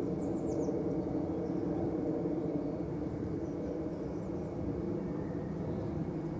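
Steady mechanical hum with several held low tones, easing slightly in level, with a few faint high chirps about half a second in.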